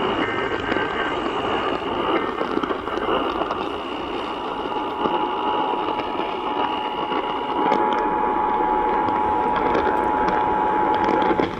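Radio static from an off-air broadcast receiver: a steady rushing hiss of noisy reception. Faint steady whistle tones run through it, a high one that stops about two-thirds of the way through and a lower one that starts about halfway.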